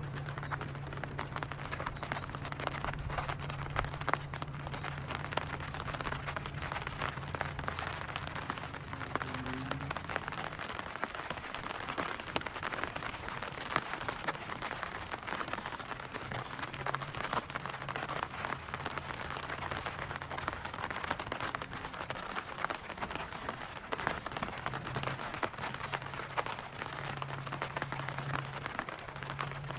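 Steady rain falling and pattering on surfaces, a dense hiss of many small drop ticks. A low steady hum sits underneath, fading out about ten seconds in and coming back later.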